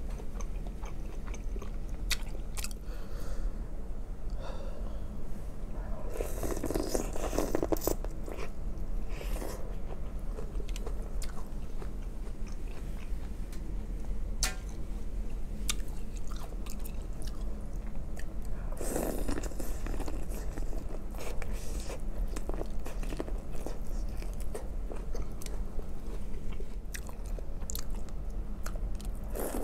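Close-miked chewing with wet mouth sounds and smacks while eating boiled shrimp from a shrimp boil, with a few louder, wetter bursts about six and nineteen seconds in.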